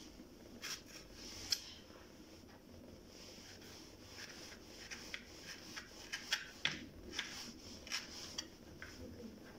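Knife slicing camel hump fat into thin pieces on a cutting board: scattered soft taps and scrapes, busier about halfway through.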